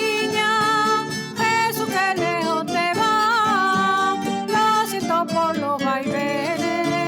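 Traditional Extremaduran folk song: a voice singing a wavering melody over plucked acoustic guitar.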